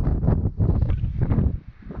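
Wind buffeting the microphone in a rumbling gust that eases off suddenly about a second and a half in.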